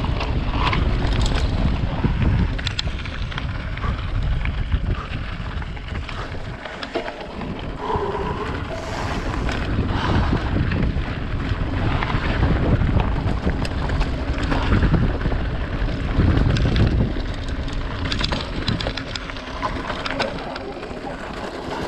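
Wind buffeting the camera microphone on a fast mountain-bike descent, with the tyres crunching over loose gravel and stones and the bike rattling in many small sharp clicks; it eases briefly partway through.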